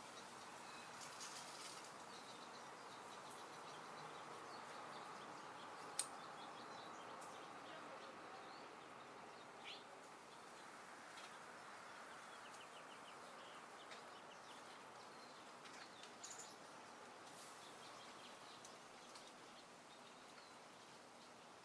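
Faint outdoor ambience: a soft, steady hiss of wind with scattered short bird chirps, and one sharp click about six seconds in.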